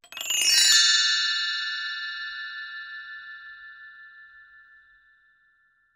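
A cluster of bell-like chime tones struck in quick succession, then ringing together and fading away slowly over about five seconds.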